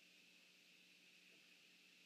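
Near silence: a faint steady hiss with a thin high steady tone and a low hum.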